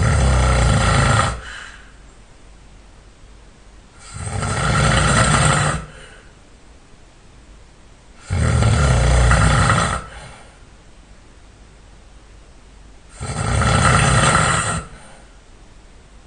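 A person snoring loudly and hard, four long snores about every four and a half seconds, each lasting about a second and a half, with quiet breathing between.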